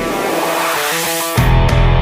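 Background music: hard rock with distorted electric guitar, busy rapid notes and a heavy low hit about a second and a half in.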